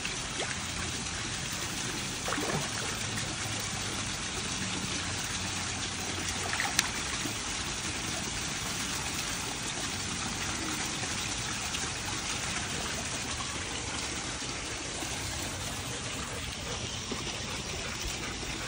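Steady trickle of running water in a garden koi pond, with a single sharp click about seven seconds in.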